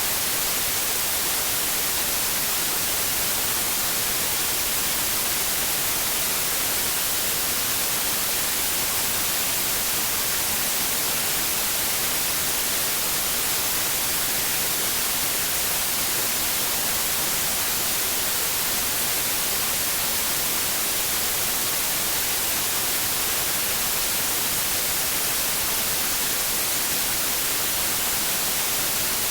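Steady white noise: an even, unbroken hiss, brightest in the high frequencies.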